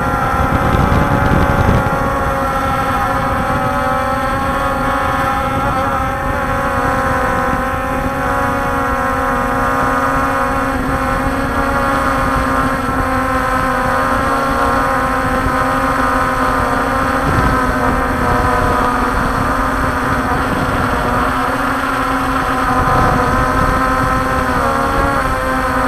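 Walkera Scout X4 quadcopter's motors and propellers in flight, a steady multi-toned hum picked up by its onboard camera, with wind rumble on the microphone. The hum wavers slightly in pitch now and then as the drone holds and adjusts its position.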